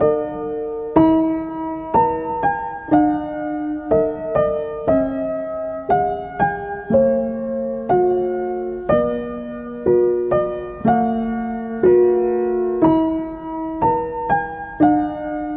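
Background piano music: a melody of single struck notes, one after another about once or twice a second.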